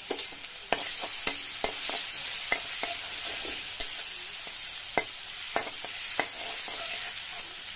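Sliced onions sizzling in hot oil in a kadai, with a metal spatula stirring them and clicking against the pan about once a second.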